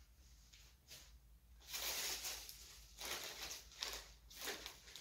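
Plastic mailer bags rustling and crinkling as they are handled, in a few irregular bursts starting about two seconds in.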